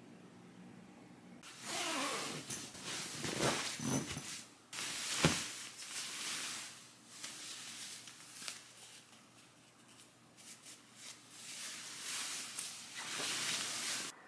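Rustling of a duvet and a ruffled cotton duvet cover being handled and stuffed, coming and going in waves, with a soft thump about five seconds in.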